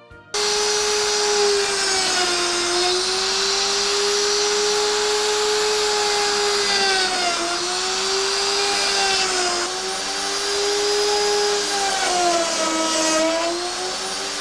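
Electric plunge router running at high speed with a steady whine, its pitch sagging briefly several times as the bit bites into the wood and the motor takes load.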